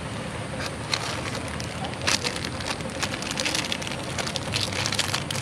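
Steady rain pattering, with the crackle of a plastic food packet being handled among the many small clicks.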